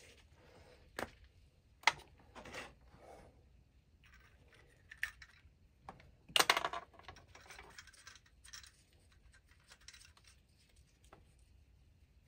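Small clicks, taps and scrapes as oil burner parts and hand tools are handled, with a brief louder rustle about six seconds in.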